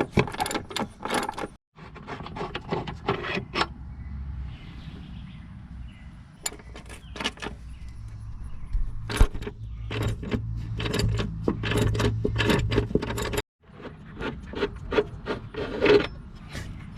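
Hand tools working the upper control arm's 14 mm bolts in a car's front suspension: repeated metallic clicks and clinks of wrench and socket on the bolts and arm, with a low hum through the middle stretch.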